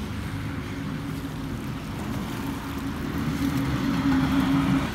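An engine running steadily as a low hum, growing louder toward the end and then cutting off suddenly.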